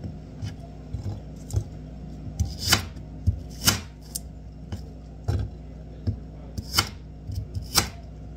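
Knife cutting fruit on a cutting board: irregular sharp knocks and clicks, a few of them louder, over a faint steady hum.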